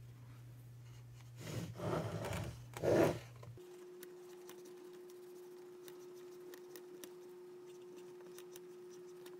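Handling noise from a car stereo chassis being turned and worked on by hand. Two short bursts of knocking and rustling come about one and a half and three seconds in, followed by faint light ticks over a steady low hum.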